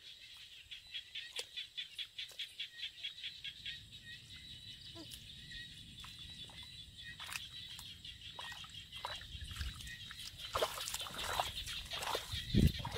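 Bare feet and hands squelching and splashing in wet rice-field mud, with the louder squelches of steps near the end. A steady high buzz runs underneath, with a fast, even run of high chirps over the first few seconds.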